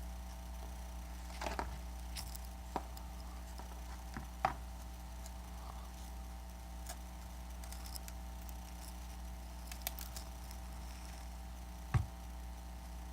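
Scattered small clicks and taps of plastic pry tools and handling on an iPad Air 2's display assembly as it is pried loose, over a steady low hum.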